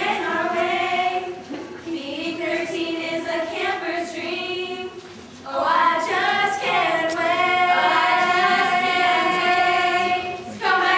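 A small group of young women singing a song together without accompaniment. After a short pause about halfway, they hold one long note for several seconds.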